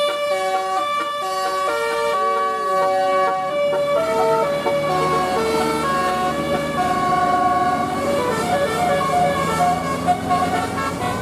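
Indonesian bus 'telolet' multi-tone air horn playing a tune: several notes sound together and change in steps, with a short sliding note about two seconds in.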